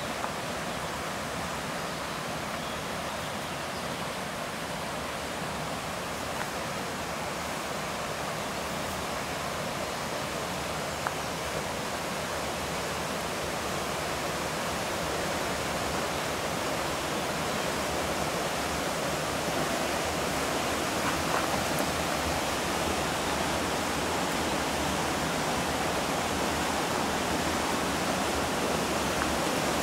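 Steady rush of falling, churning water, getting a little louder over the half minute.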